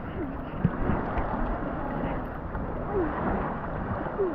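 Wind on the microphone and waves washing in the shallows, a steady rushing noise, with faint voices in the background.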